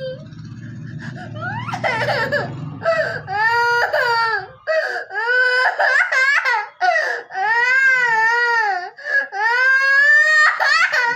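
Young child crying and wailing: long, high-pitched cries that rise and fall, broken by short catches of breath. A low hum sits under the first few seconds.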